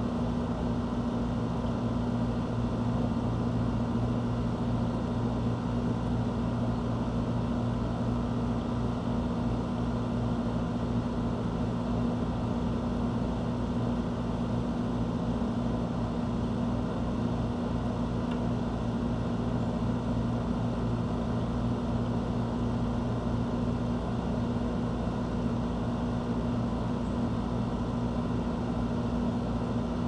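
Steady low machine hum at a constant pitch, unchanging throughout, with no birdsong.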